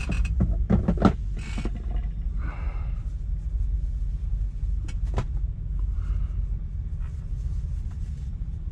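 International semi-truck's diesel engine idling, a steady low rumble heard inside the cab, with a few clicks and knocks of things being handled in the first second and again about five seconds in.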